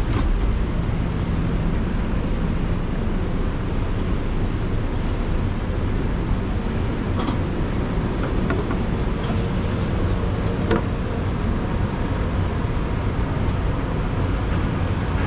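Steady city street noise with road traffic running past, heavy in the low end, and a couple of faint clicks.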